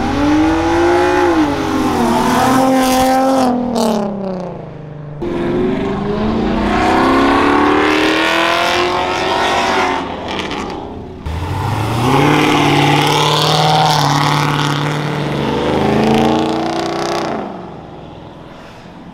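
Cars accelerating hard past the spectators one after another, engines revving up through the gears with the pitch climbing and dropping between shifts. There are three separate passes, with abrupt breaks about five and eleven seconds in, and the sound fades near the end.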